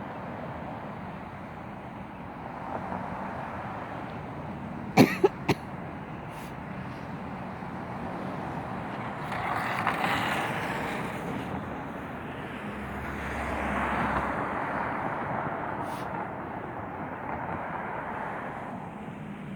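Street traffic: a steady wash of road noise with vehicles swelling past, one about halfway through and another a few seconds later. Three sharp knocks come close together about five seconds in.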